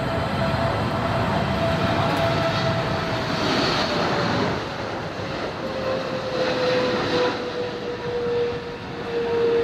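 Boeing 777-300ER's GE90 jet engines on landing approach: a steady rushing jet noise with a whine that slowly falls in pitch as the aircraft passes.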